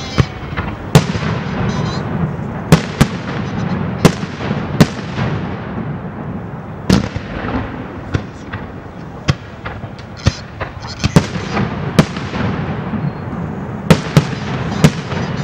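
Aerial fireworks display of a castillo de fuegos artificiales: about a dozen sharp shell bursts go off at irregular intervals over a continuous crackle and rumble of stars and smaller reports.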